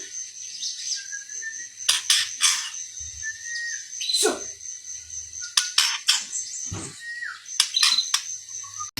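Young white-rumped shamas (murai batu) calling: short whistled notes and repeated sharp clicks, over a steady high-pitched tone.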